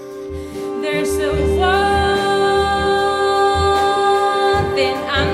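Female vocal ensemble singing layered, sustained harmony chords with vibrato, coming in about a second in and growing louder, over low bass notes from the accompanying jazz big band.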